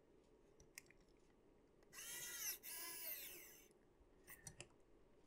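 Small cordless electric precision screwdriver driving a self-tapping screw, in two short runs about two seconds in. Its motor whine rises and falls in pitch.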